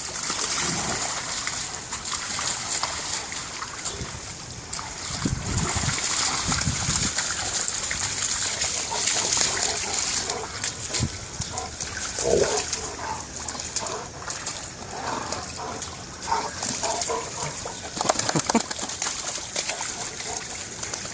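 Water splashing and sloshing irregularly as animals run and play through shallow flood water.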